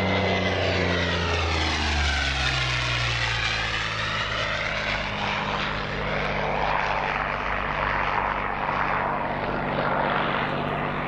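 Curtiss P-40 Kittyhawk's V12 piston engine and propeller passing by in display flight. The engine note falls in pitch during the first few seconds as the fighter goes past, then carries on at a steady pitch as it banks away.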